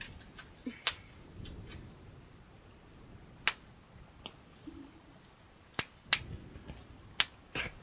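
Bubble wrap being popped by hand, bubble by bubble: about seven sharp pops at irregular intervals, the loudest about three and a half and seven seconds in.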